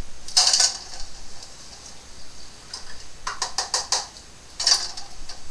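Hard plastic clicks and clatter from a small food processor's bowl and lid being handled and twisted off the motor base. The sound comes in a few short bursts, with a quick run of clicks a little past three seconds in. The motor is not running.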